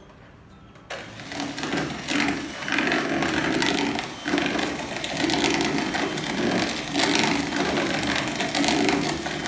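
Electric hand mixer switching on about a second in and running with its beaters in cake batter, mixing in the milk just added, its level rising and falling.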